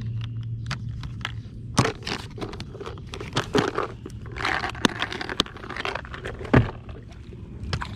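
Handling noise: crinkling and rustling with irregular clicks and knocks, the loudest knock about six and a half seconds in, over a faint steady low hum.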